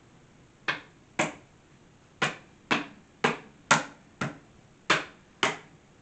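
About nine sharp knocks from a hand striking the wooden top of a chrome wire cart to seat it down onto the posts, in uneven pairs roughly half a second apart.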